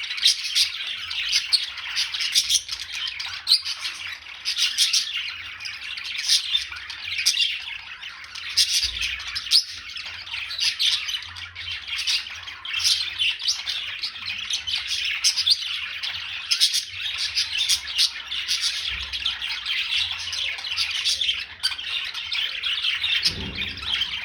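A flock of many birds chirping and squawking together, their short calls overlapping in a continuous dense chatter.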